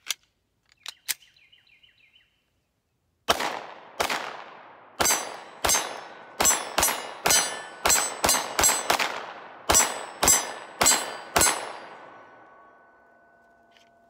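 Glock 19 Gen 4 9mm pistol firing fifteen shots in an uneven string over about eight seconds, each shot followed by an echo. The count emptied a full 15-round magazine. Before the shooting there are a couple of sharp metallic clicks from handling the pistol.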